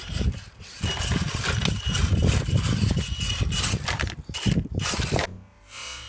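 Axial Deadbolt RC rock crawler's electric motor and gears whining as it climbs rocks, a high note coming and going, with tyres scrabbling and knocking on stone; it stops about five seconds in.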